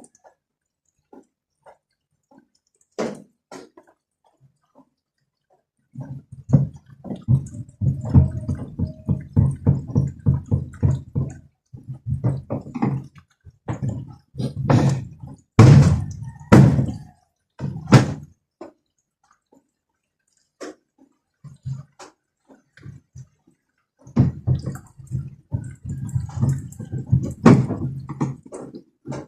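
Washing machine under repair: stretches of rapid clattering over a steady low hum, stopping and starting, with a few loud knocks in the middle.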